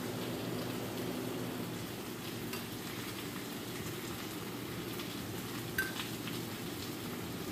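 Cream sauce simmering with a low, steady sizzle in a metal pan as seared chicken pieces are laid into it; one light click just before six seconds in.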